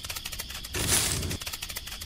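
Sound effects for a stop-motion scene: a fast, even ticking, with a short rustling swish about a second in.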